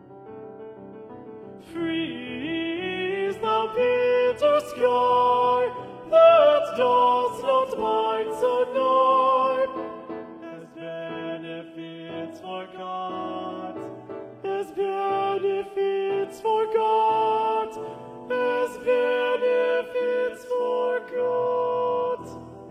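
Music: a slow melody of held, wavering notes, possibly sung, over keyboard accompaniment, growing louder about two seconds in.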